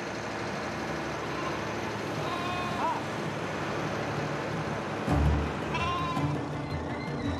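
Sheep bleating twice over a steady rush of background noise; music comes in about five seconds in.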